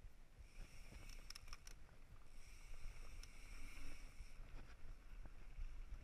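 Mountain bike rolling over a dirt singletrack trail, picked up by a handlebar-mounted camera: a steady low rumble of tyres and wind. A few sharp rattles and clicks come about a second in, and a high buzz comes and goes.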